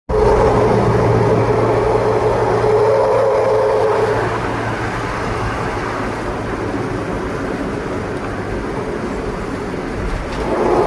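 Daihatsu Gran Max van's engine running through a loud three-branch aftermarket exhaust with a growling, snoring note. It is loudest for the first four seconds, eases off, then swells again near the end.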